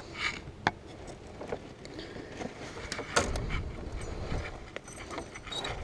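Scattered small metal clicks and handling noises as needle-nose pliers work a spinnerbait's hook out of a fish's mouth, with one louder knock about three seconds in.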